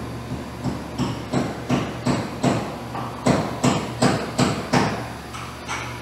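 A quick, even series of about a dozen sharp metallic strikes, like hammer blows, nearly three a second. They grow louder through the middle and thin out near the end, over a steady low hum.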